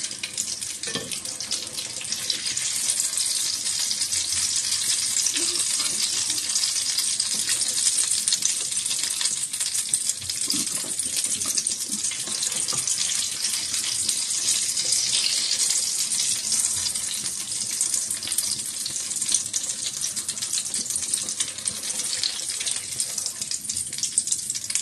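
Potato cutlets shallow-frying in hot oil in a nonstick pan: a steady high sizzle with fine crackling, with a few soft knocks of a wooden spatula as the golden-brown cutlets are turned and lifted out.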